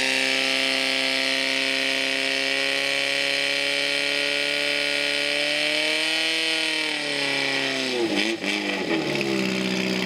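Fire-sport portable fire pump engine running flat out at high, steady revs. Its pitch rises a little, then the revs drop sharply about eight seconds in and settle lower, the pump throttled back once the jets have hit the targets.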